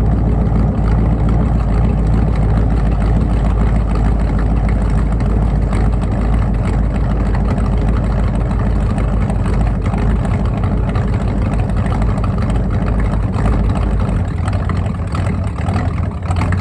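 Ford 302 V8 in an F150 pickup idling steadily at the exhaust while still warming up after a cold start. The lowest part of the sound drops off slightly near the end.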